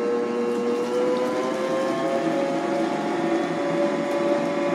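Electric stand mixer running, beating carrot cake batter: a steady motor whine that rises a little in pitch about two seconds in, then holds.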